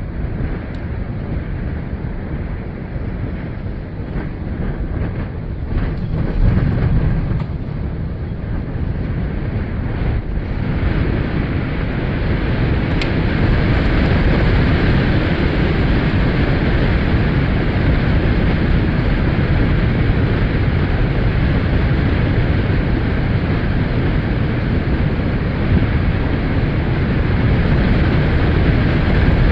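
Storm wind blowing on the microphone as a steady rumbling roar, growing louder and fuller a little over ten seconds in and then holding.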